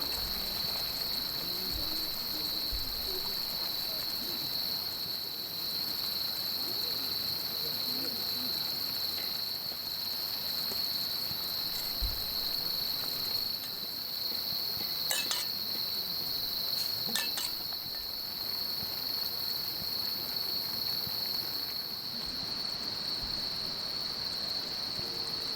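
Steady chorus of crickets or other insects, a constant high-pitched chirring that does not let up, with a few sharp light clicks about two-thirds of the way through.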